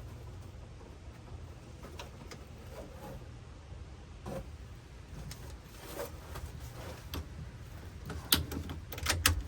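Scattered clicks and light knocks from hands handling wiring and dash trim, with a cluster of sharp clicks near the end, over a steady low hum.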